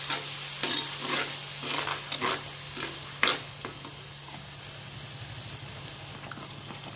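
Perforated metal ladle scraping and stirring ground onion-spice masala frying in oil in a clay pot, over a steady sizzle: the raw masala being fried. The strokes come about twice a second, with one sharp knock about three seconds in, then the stirring eases and the sizzle carries on quieter.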